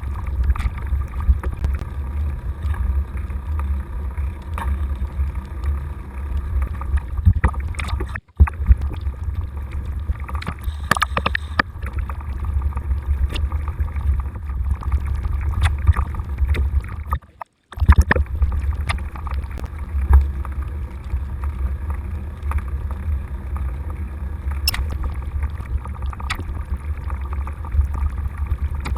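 Wind buffeting the microphone of a camera riding along on a bicycle in snow: a steady low rumble with scattered faint clicks and rattles. The sound cuts out briefly twice.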